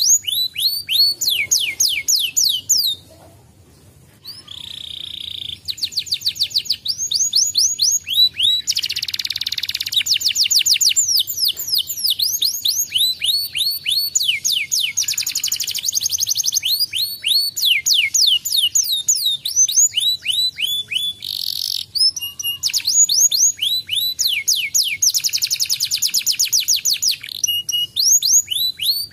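Domestic canary singing: long runs of fast, evenly repeated falling notes, about six to eight a second, with a brief lull about three seconds in and a few buzzy notes between the runs.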